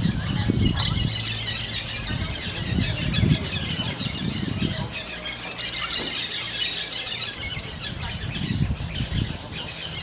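A flock of small green parakeets calling, with many short, high-pitched calls overlapping without a break, over a low rumble.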